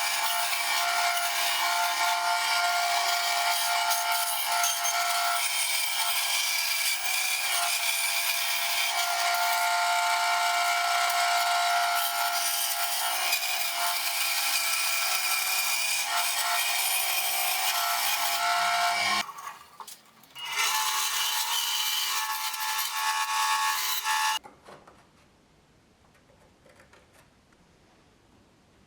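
Power saw running and cutting wood, a steady whine over a loud rasp. It dips briefly about 19 seconds in, picks up again, then cuts off abruptly about 24 seconds in.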